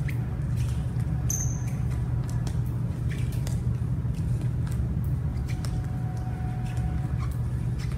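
A steady low rumble throughout, with scattered quick footfalls and a few short sneaker squeaks on a gym floor as a person runs side to side, stopping to touch the floor.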